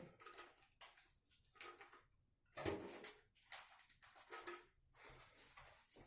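Small PC-assembly screws and parts being rummaged through and handled: a handful of short, scattered clicks and rustles with quiet gaps between them.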